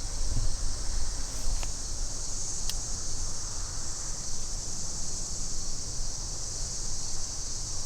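Steady high-pitched insect buzzing, with a low wind rumble on the microphone and two faint clicks, about one and a half and three seconds in.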